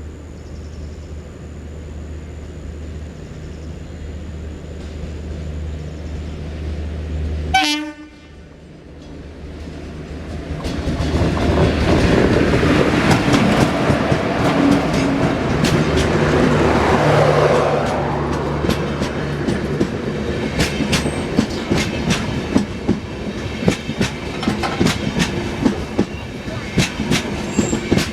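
Passenger train passing at speed: the WAP4 electric locomotive and its LHB coaches build to a loud rush, then the wheels clatter rhythmically over rail joints as the coaches go by.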